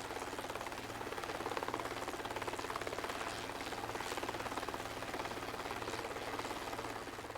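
Steady running of aircraft rotors, a rapid even chopping pulse over a low hum.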